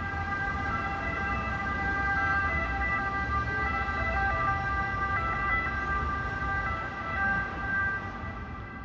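Ambulance two-tone siren sounding as it passes, its steady tones switching back and forth between two pitches over a low rumble of road traffic. It is loudest in the middle and fades a little toward the end.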